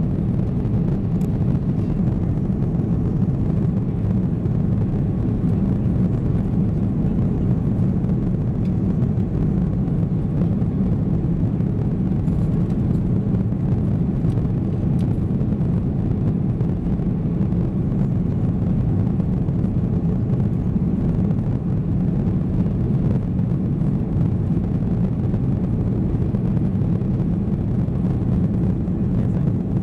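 Cabin noise inside an Airbus A330-300 at takeoff power: the engines and rushing air make a steady, low rumble that stays even throughout.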